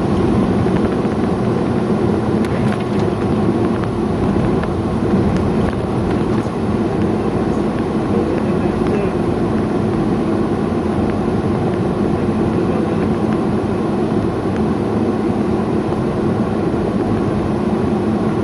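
Steady engine and road noise of a moving vehicle on the road, an even, unbroken drone.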